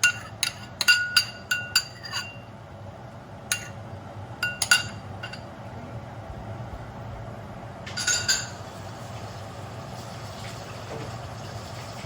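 A spoon clinking and tapping against a bowl with sharp ringing clinks as the soy sauce and seasoning mixture is scraped out into the pan: a quick run in the first two seconds, a few more around four to five seconds, and a short cluster about eight seconds in, over a steady low background noise.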